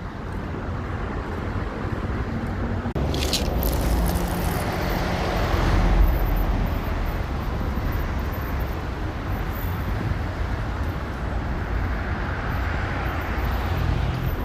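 Road traffic noise: vehicles passing with a steady rumble, and a brief high-pitched squeal about three seconds in.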